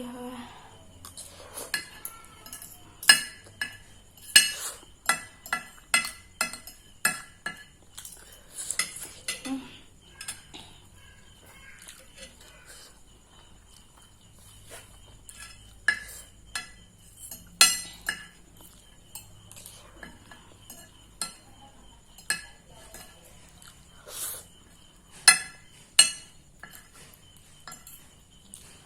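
Cutlery clinking and scraping against a plate in irregular sharp clicks, scooping up the last mouthfuls of a plate of noodles.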